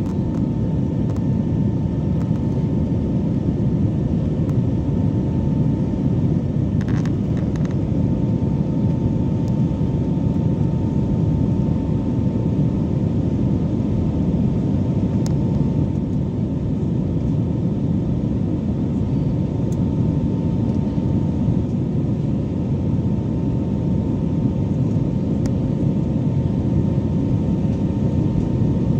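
Steady cabin roar of an Airbus A320-family airliner climbing after takeoff, with jet engine noise and rushing airflow heard over the wing and a faint steady hum running through it. A brief faint rattle comes about seven seconds in.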